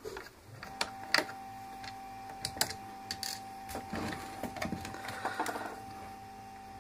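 Scattered small clicks and taps of a screwdriver and the plastic housing of a Clatronic DB 3329 steam iron being handled during disassembly. A faint steady hum comes in about a second in.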